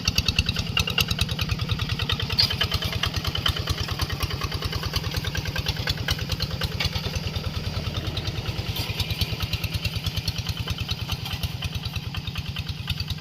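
Kubota diesel engine running steadily with a rapid, even firing beat, as it powers a machine ploughing the field.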